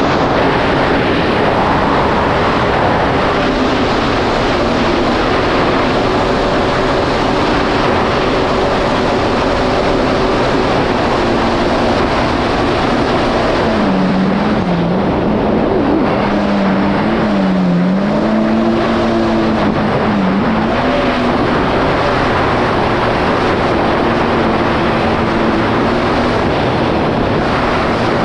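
Supercharged Yamaha GP1800R SVHO jet ski running at speed, its engine note over a loud rush of wind and water. Past the middle the engine pitch dips and recovers several times before settling steady again.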